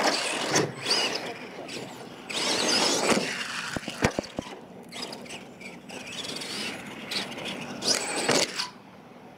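Radio-controlled monster truck running on a dirt track: its motor whines in repeated surges as the throttle is worked, with a few sharp knocks about four seconds in.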